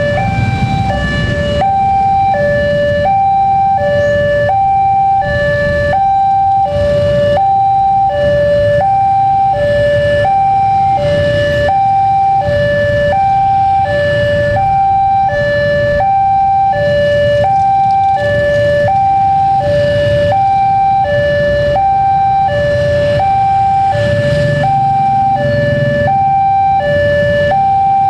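Electronic warning alarm of a Wantech railway level-crossing signal sounding continuously, alternating evenly between a high and a low tone, each held just under a second. Low road-traffic rumble from waiting motorbikes and cars runs underneath.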